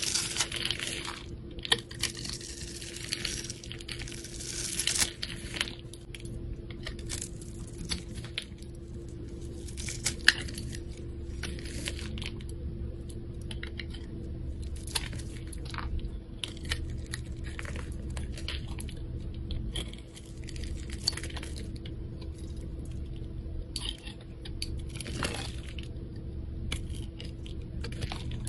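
Bars of soap being cut and scraped with a knife blade: crisp crackles and crunches as scored soap cubes break away and thin shavings peel off, densest in the first few seconds, then scattered clicks and scrapes.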